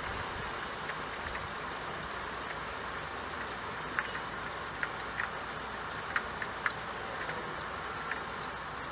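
Steady rain falling, an even hiss with scattered individual drops ticking sharply, more of them in the second half.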